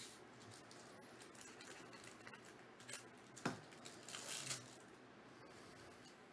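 Faint handling of trading cards: a few light clicks and slides as cards are flipped and shifted in the hands, with one sharper tap about three and a half seconds in and a short rustle just after.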